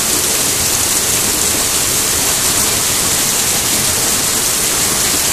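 Heavy rain pouring down in a steady, loud hiss, hard enough to run off rather than soak in.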